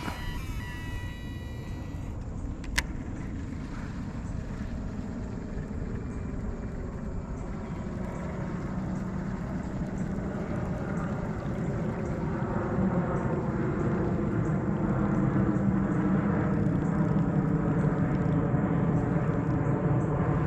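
A motor engine running with a steady pitch, growing gradually louder over the second half. There is one sharp click about three seconds in.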